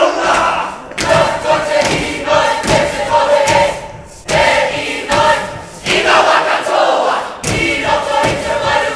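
Kapa haka group chanting a haka in unison, many voices shouting together in held phrases, punctuated by sharp hits from the performers' stamps and slaps. The chant breaks off briefly about four seconds in, then resumes.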